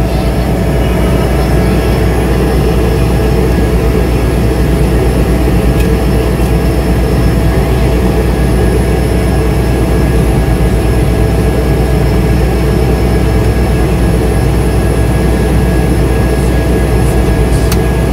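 Cessna 208 Caravan's PT6A turboprop engine idling steadily on the ground, heard from inside the cockpit: a loud, even deep drone with a constant thin turbine whine above it.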